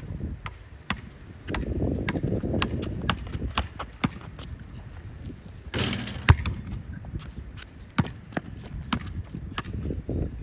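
One-on-one basketball play: a quick run of sharp taps from feet and the dribbled ball on a hard court, about three to four a second. About six seconds in there is a short noisy rush and one louder bang.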